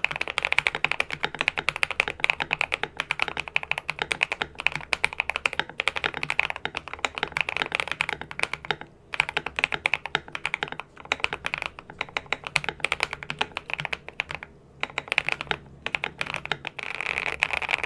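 Fast, continuous typing on an Akko 3098B mechanical keyboard fitted with lubed and filmed Akko CS Silver linear switches and double-shot PBT keycaps, modded with case foam and tape to cut the clack. The keystrokes come in a rapid stream, with short pauses about nine seconds in and twice near the end.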